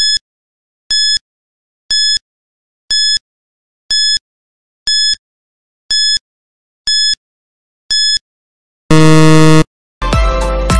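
Countdown timer sound effect: a short high beep once a second, nine beeps in a row, then a longer, louder buzzer about nine seconds in marking the end of the count.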